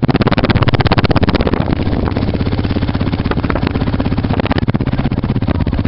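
ATV engine idling steadily with a rapid, even exhaust pulse, heard close to the muffler.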